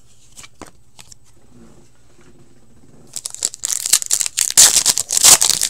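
A hockey card pack's wrapper being torn open and crinkled by hand: a few light clicks, then from about three seconds in a loud run of tearing and crackling.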